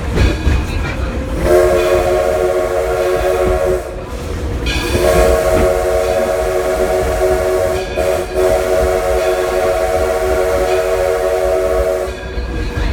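Steam whistle of the Edison steam locomotive blowing a short blast, then a long blast of about seven seconds with a brief break partway through. The train rumbles underneath.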